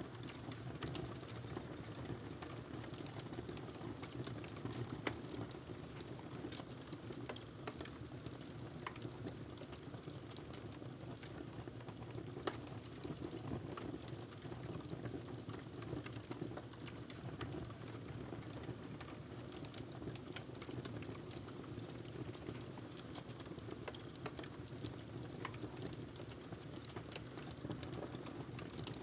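Wood fire crackling in a fireplace: irregular sharp pops and snaps over a steady low background.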